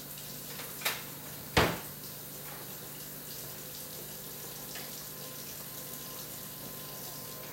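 Two sharp knocks close together about a second in, the second louder, from items being handled on a kitchen countertop, over a steady low hiss.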